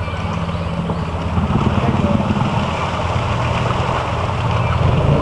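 4-wheeler (ATV) engine running under load as it drives through deep water, with water splashing around it. It grows gradually louder as it comes closer.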